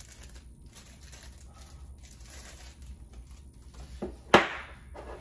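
Quiet handling and crinkling of small plastic packaging, then a sharp tap about four seconds in as the GoPro Max battery is set down on the table.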